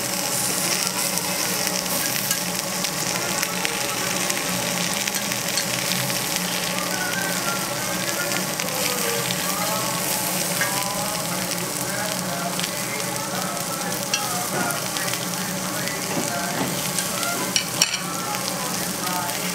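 Lamb, leeks and bean sprouts sizzling steadily in fat on a domed cast-iron jingisukan grill pan. A couple of sharp clicks sound near the end.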